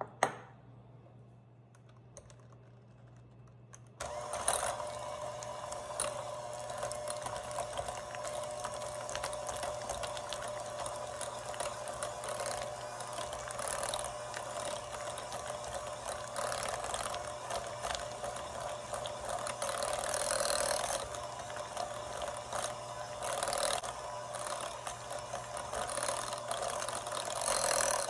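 A single sharp knock at the start, then an electric hand mixer switches on about four seconds in and runs steadily on low speed, its beaters churning thick cream cheese in a glass bowl.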